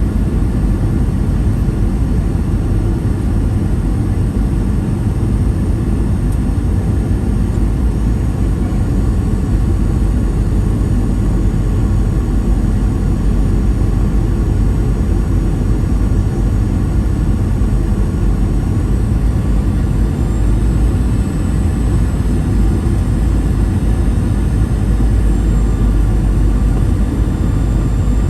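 Inside the cabin of a Boeing 737-800, the steady roar of its CFM56 turbofan engines and the airflow, with a faint high engine whine that rises slightly in pitch about two-thirds of the way through and then settles back.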